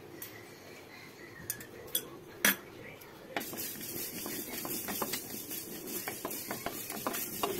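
A spoon stirring and scraping mustard seeds as they dry-roast in a hot kadai, starting about three and a half seconds in, with small clicks through it. Before that, a few sharp knocks, the loudest about two and a half seconds in.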